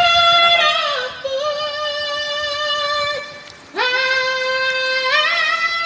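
A woman singing long held notes without words, in two sustained phrases with a short break about three seconds in.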